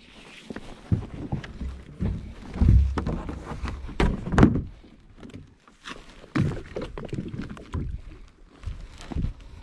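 Irregular low thumps and a few sharp knocks, spaced unevenly.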